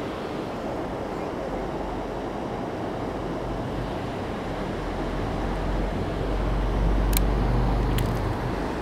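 Steady rushing of a fast-flowing river, with a low rumble of wind on the microphone swelling about five seconds in. Two faint clicks sound near the end.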